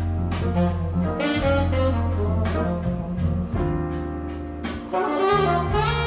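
Jazz played through a Boston Acoustics M350 tower loudspeaker for a sound test, picked up from across the room: a saxophone lead over deep bass notes, with steady cymbal strokes.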